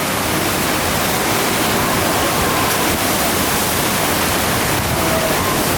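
FlowRider sheet-wave machine: a thin sheet of pumped water rushing steadily and loudly up its padded slope.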